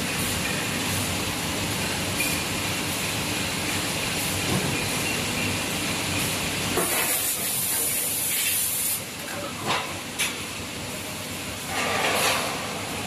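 Cold-chamber die casting machine running through its cycle: steady machine noise with bursts of loud hissing, one about two seconds long near the middle and shorter ones after it.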